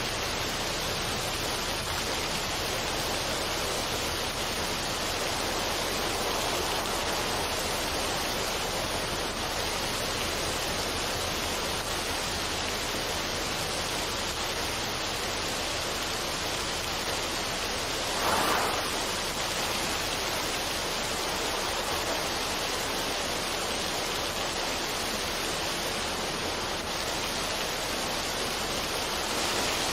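Steady rushing of a small waterfall, a mountain stream pouring over rocks, with one brief louder splash about two-thirds of the way through.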